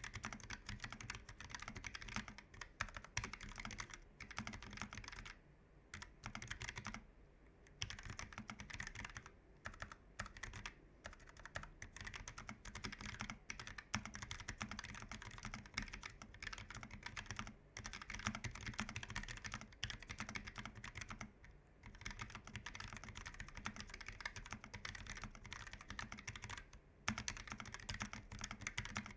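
Typing on a Keychron K1 v4 tenkeyless keyboard with Gateron low-profile red (linear) switches: a fast, continuous patter of key clicks, broken by a few brief pauses.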